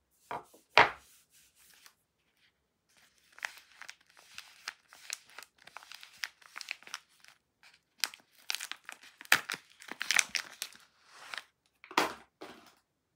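A bar of soap set down on a wooden table with a single knock about a second in, then a soap bar's printed wrapper crinkled, rustled and torn open, with sharp tearing and crackling through most of the rest.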